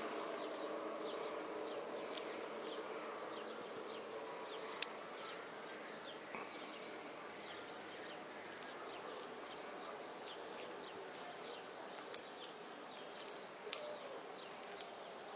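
Many short, high, falling bird chirps over a steady hum, with a few sharp clicks: one about five seconds in and two near the end.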